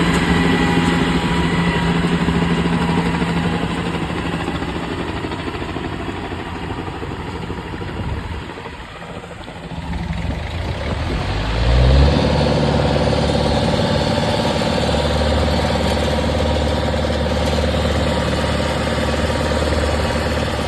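Yanmar combine harvester's diesel engine running steadily; about eight seconds in it fades and drops off, then revs up with a rising pitch around eleven to twelve seconds and settles into a steady run again.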